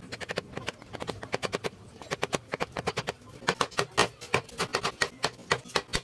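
A rapid, uneven series of sharp clicks and light knocks, several a second, varying in loudness.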